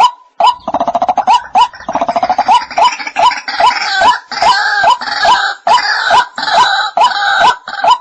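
White-breasted waterhen calling: a steady series of sharp 'kook' notes about twice a second. About half a second in, rapid croaking joins, followed by harsh, higher grunting calls layered over the notes; near the end the plain note series carries on alone.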